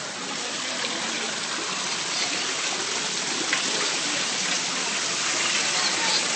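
Steady rush of water falling and splashing into a pond from a small waterfall.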